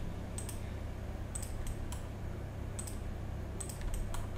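Computer mouse clicking as points are picked in the drawing, with sharp clicks coming mostly in quick pairs, about four pairs in all, over a steady low hum.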